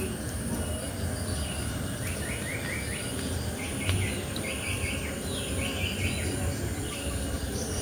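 Forest ambience: a bird calls in quick runs of short repeated notes from about two seconds in for some four seconds, over a steady high insect drone and a low rumbling noise. One sharp click about four seconds in.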